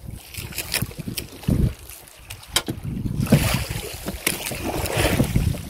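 Wind buffeting the microphone over water lapping against a small outrigger boat's hull, with a few sharp knocks and rustles as the handline is handled.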